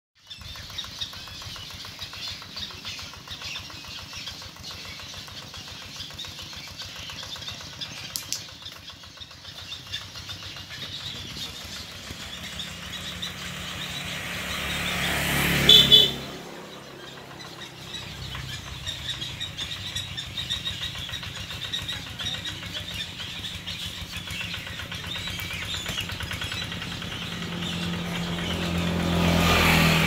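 A motor vehicle passes close by. It grows louder to a peak about halfway through and then drops away suddenly, and a second one builds up near the end. Between them a steady low engine hum carries on.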